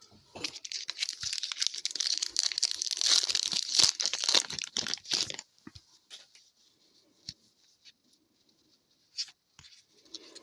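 A trading card pack wrapper being torn open and crinkled, a dense crackle for about five seconds, followed by a few soft clicks of cards being handled.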